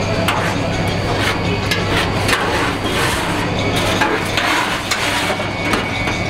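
Irregular clatter of metal knocks and scrapes from a hand tool working in the steel drip tray under a chicken rotisserie, over a steady low hum.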